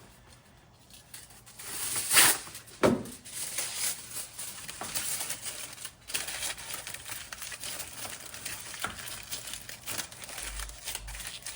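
Aluminium foil crinkling and crumpling as it is wrapped and pressed around a part to mask it for paint, with two louder rustles about two and three seconds in.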